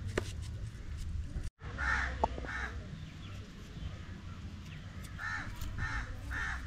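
Crow cawing: two harsh caws about two seconds in, then three evenly spaced caws near the end, over a low steady rumble.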